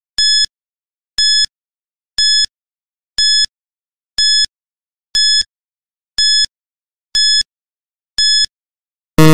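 Quiz countdown timer sound effect: a short, high electronic beep once a second. Near the end, as the count reaches zero, a louder, lower buzzer sounds for time up.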